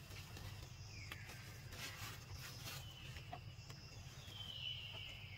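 Outdoor ambience: a steady faint insect drone over a low rumble, a few short rustles and clicks in the middle, and a high call that slides down in pitch, once about a second in and again, louder, near the end.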